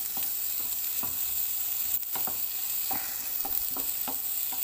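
Sliced red capsicum and onion sizzling in a hot, lightly oiled frying pan, stirred with a wooden spatula that scrapes and knocks against the pan a couple of times a second.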